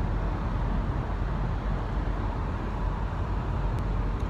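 Steady road noise of a car driving through a road tunnel, heard from inside the cabin.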